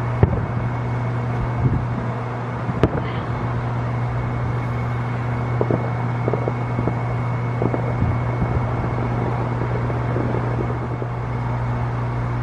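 Steady low mechanical hum with scattered faint pops and thuds from distant fireworks bursting, the sharpest about three seconds in.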